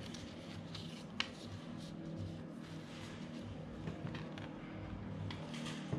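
Folded paper zine sheets handled and turned over, with light scattered rustles and one sharper click about a second in, over a faint steady low hum.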